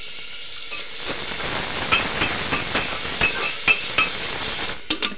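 Tomatoes and onions sizzling in hot ghee in an aluminium pressure cooker, getting louder about a second in as they are stirred. A metal ladle scrapes and taps against the pot, each tap ringing briefly.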